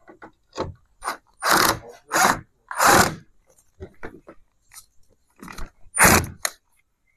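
A 10.8 V cordless drill-driver running in several short bursts as it drives screws to fix a lever handle's rosette to a door, with a longer pause before the last burst near the end.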